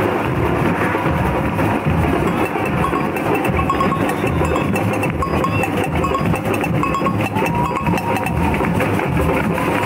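Carnival street-parade music with percussion, loud and dense, mixed with crowd noise, and a few short high tones from about a third to two-thirds of the way through.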